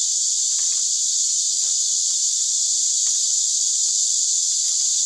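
Steady high-pitched drone of an insect chorus, with a few faint clicks and rustles of split bamboo strips being worked into a woven basket.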